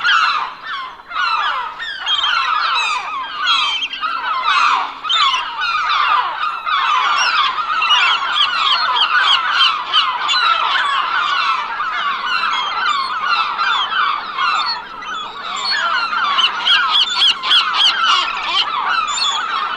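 A large flock of gulls calling all at once, a dense continuous chorus of many overlapping squawks and cries.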